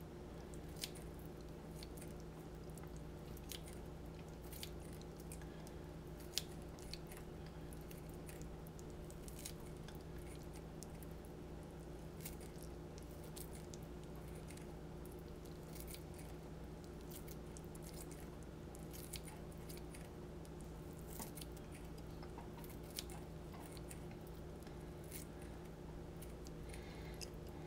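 Kitchen shears snipping boiled lobster meat into small pieces: faint, irregular snips and clicks over a steady low hum.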